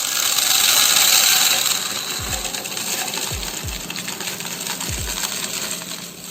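Small pieces of dry food pouring into a container in a steady rattling stream, loudest in the first second and a half. A few low thuds come in along the way.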